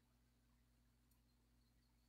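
Near silence, with a faint steady low hum.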